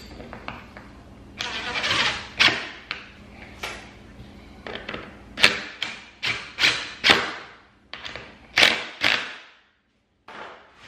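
Cordless power driver running in a quick series of short trigger bursts, driving bolts through the seat brackets into threaded inserts in a golf cart seat base.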